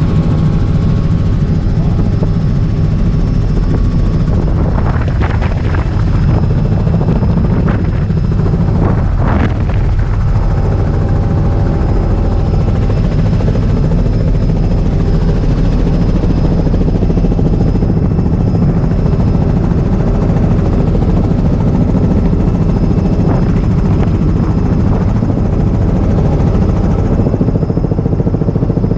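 Robinson R44 helicopter's rotor and engine running steadily in flight, heard from inside the cabin with the side open to the wind.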